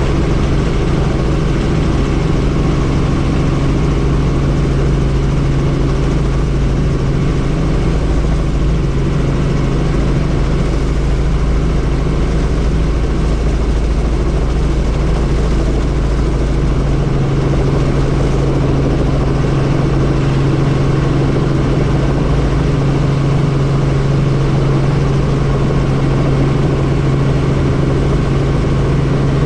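Helicopter engine and rotor running steadily, heard from on board: a steady low drone with an even rushing noise over it.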